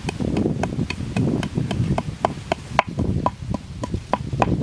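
Wooden pestle pounding salt, peppercorns, garlic and chili in a mortar, a steady run of about four knocks a second, each with a short ring.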